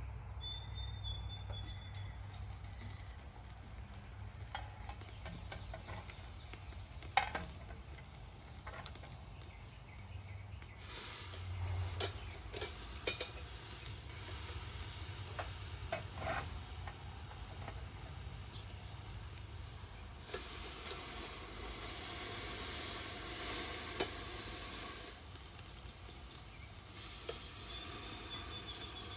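Steaks sizzling on the hot grate of a ceramic kamado charcoal grill at about 400 degrees as they are laid on. The sizzle swells louder twice, with scattered sharp clicks and taps.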